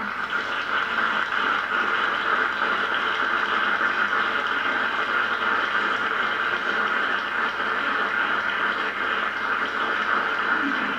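Audience applauding steadily after a song, a dense even clapping with no music under it.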